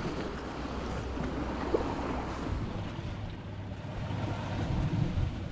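Sea waves washing against a rocky shore, with wind buffeting the microphone, and a single brief click a little under two seconds in.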